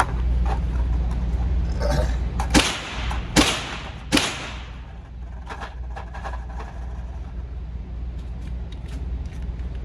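Three gunshots, about 0.8 s apart, each followed by a short echo, over a steady low hum. Faint small clicks come afterwards.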